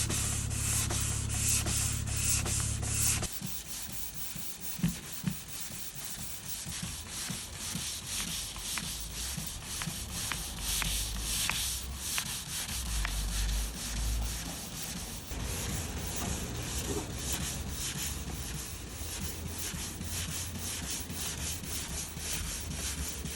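Electric sanding machine working over primer on a car door panel: a steady motor hum under a continuous scratchy rasp of abrasive on the surface, louder for the first three seconds or so and then quieter.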